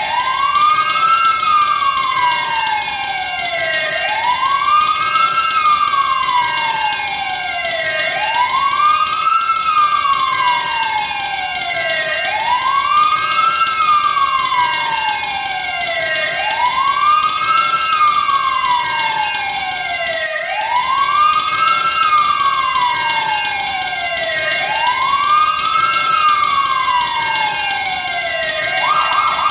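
Fire alarm siren wailing: each cycle rises quickly, then falls slowly, repeating about every four seconds, over steady high tones. Near the end it switches to a fast warble.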